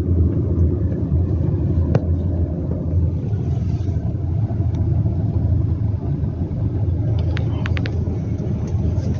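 Steady low rumble of a vehicle driving slowly, heard from inside the cabin, with a faint click about two seconds in and a few light clicks near the end.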